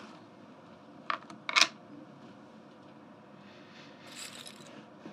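Casino chips clacking as a blackjack bet is placed: a couple of quick light clicks, then one loud sharp clack about a second and a half in.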